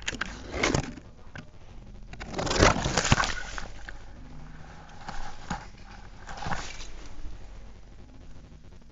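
Leaf litter, ferns and twigs rustling and crunching as a player moves through woodland undergrowth, in several separate bursts, the longest about two and a half to three seconds in.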